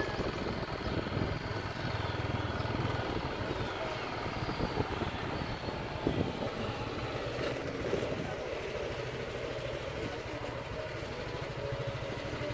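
A vehicle engine running steadily while on the move, with road and wind noise.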